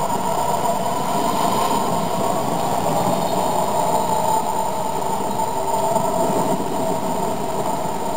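HO-scale model diesel locomotives with sound decoders rolling past, giving a steady diesel engine drone from their small onboard speakers.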